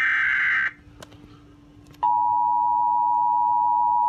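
Emergency alert coming over a radio speaker: a harsh, buzzy burst of the digital SAME header data ends under a second in, then after a short gap with two faint clicks, a steady two-tone attention signal starts about two seconds in and holds, announcing a severe thunderstorm warning.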